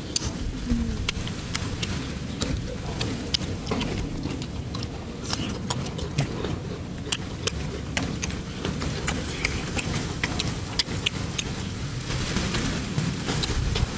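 Eating roasted chicken by hand and mouth: irregular sharp clicks of chewing and tearing, several a second, over a steady low rumble.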